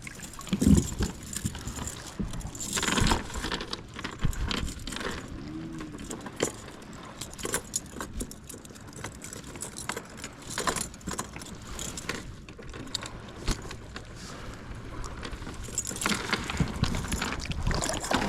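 Irregular small clicks, knocks and rustles of fishing tackle being handled in a kayak while a red worm is rigged on a hook.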